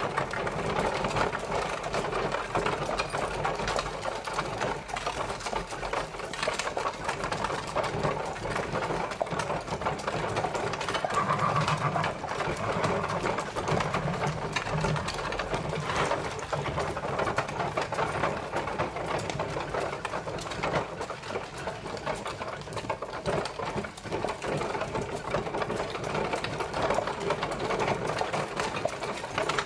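Horse-drawn carriage travelling: a continuous, even rattle and clatter of the carriage and its wheels.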